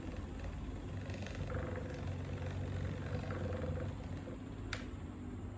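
Small DC micro motor spinning a homemade airplane propeller, a steady whirring hum, with a single sharp click near the end.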